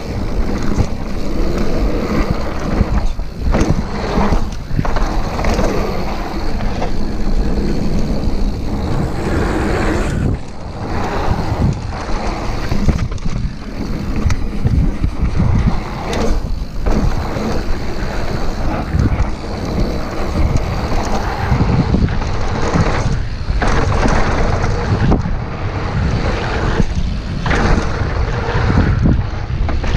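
Mountain bike riding fast down a dirt trail: tyres rolling and crunching over the packed dirt with the bike rattling, under heavy wind buffeting on the microphone that rises and falls with a few brief lulls.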